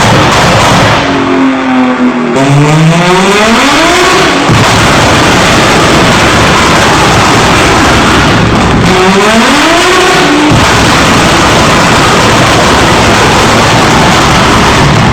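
Turbocharged BMW M3 engine and sports exhaust running very loud. Its pitch drops and climbs back up twice, around the start and again about two-thirds through. In between and near the end it holds long stretches of dense, raspy high-rev sound.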